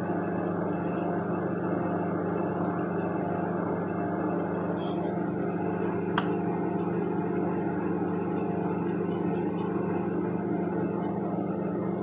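Microwave oven running: a steady electrical hum with fan noise while it melts a plastic tub of jelly soap base. Two or three faint ticks sound over the hum.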